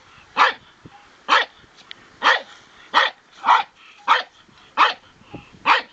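Small terrier-type dog barking repeatedly at a garter snake, about eight sharp single barks in a steady run, a little under one a second.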